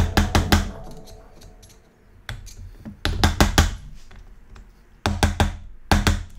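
Sharp metal-on-metal taps in quick bursts of four or five, a hammer striking a screwdriver set into a slot cut in a stripped bolt in the aluminium engine case to work it loose. Quiet background music runs underneath.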